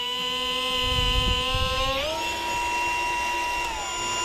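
Die grinder whining steadily as its bit bores an eye socket into a wood carving, with a rougher grinding noise about a second in. About halfway through, the motor's pitch shifts to a new steady tone.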